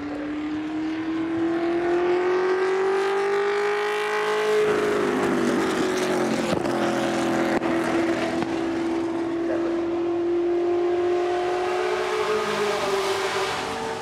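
Lotus 38's Ford quad-cam V8 racing engine at full throttle: the engine note climbs for about four and a half seconds, drops sharply, then holds steady as the car draws close.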